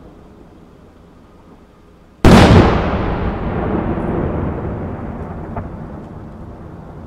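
An aerial firework shell bursts with a single sharp, loud bang about two seconds in. A long rumbling tail follows and fades away over several seconds.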